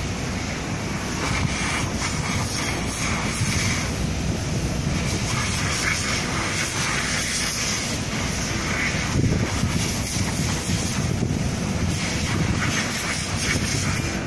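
Steady low engine rumble, mixed with wind buffeting the microphone.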